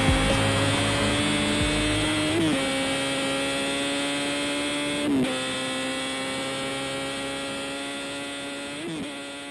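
Music outro: a sustained synth drone, its pitch creeping slowly upward, fading out after a low pulsing beat drops away about two seconds in.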